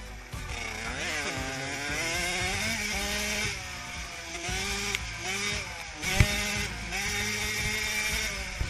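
Small 50cc two-stroke minibike engine running hard at high revs, its pitch climbing and dropping again and again as the throttle is worked around the track. A single sharp knock sounds a little after six seconds.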